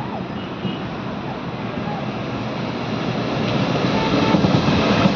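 Indian Railways diesel locomotive approaching along the line. Its engine and wheel noise grows steadily louder in the last couple of seconds as it draws close.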